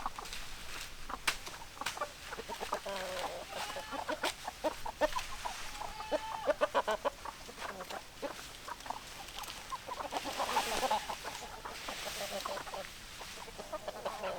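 Domestic hens clucking in many short, repeated calls, with scattered sharp clicks among them.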